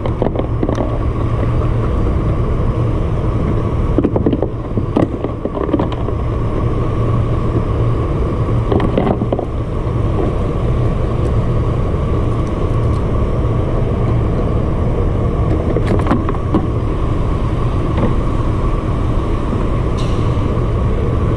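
A steady, engine-like low rumble with a constant hum, under scattered clicks and knocks from fishing tackle being handled on the kayak.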